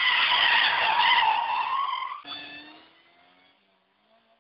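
Car tyres squealing on asphalt as a sedan skids sideways, loud for about two seconds and then cutting off suddenly. A fainter, lower sound dies away briefly after it.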